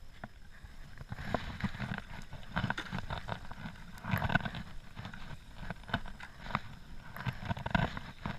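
Water slapping and splashing against a stand-up paddleboard's nose as it moves through light chop, with paddle strokes in the water. There are uneven splashes throughout, with louder ones about four seconds in and near the end.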